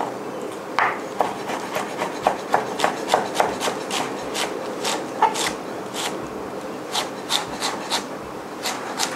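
Chef's knife chopping carrot on a wooden cutting board: an uneven run of sharp knocks of the blade on the wood, about three a second, starting about a second in.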